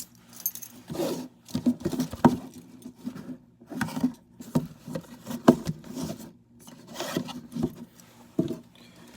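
A cardboard shipping box being handled and opened: irregular scraping, rubbing and light knocks.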